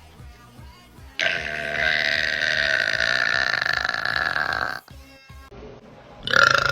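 A woman's long, loud burp, steady in pitch for about three and a half seconds, starting about a second in. A second burp starts just before the end, with faint music underneath.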